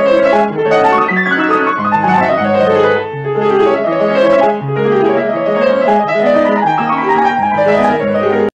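Upright piano being played: a flowing melody over lower bass notes, cutting off abruptly near the end.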